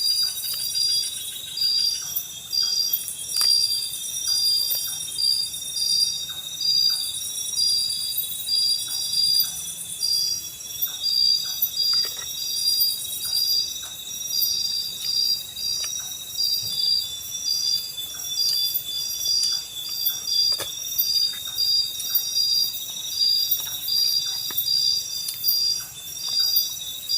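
Night insects calling in a rhythmic chorus: a pulsing high call repeats about three times every two seconds over a steady high buzz. Faint scattered clicks sound now and then.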